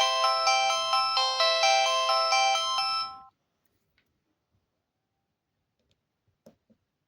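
Pantech PG-C120 cellphone playing one of its default ringtones: a bright melody of quick notes, several sounding at once, that stops about three seconds in. Near silence follows, with two faint clicks near the end.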